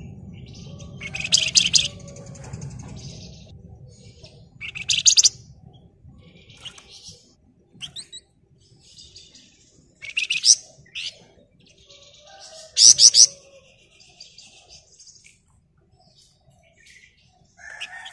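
Flamboyan (wergan Jawa) songbird calling in dense rapid rattling bursts, the ngebren rapat call, four loud ones each about a second long, with softer twittering between.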